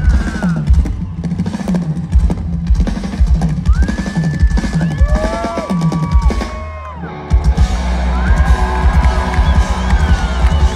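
A live rock drum kit played hard, with rapid fills of kick and snare hits under the band, heard from the crowd. About seven seconds in the sound drops out briefly, then the drums return over a steady low held note.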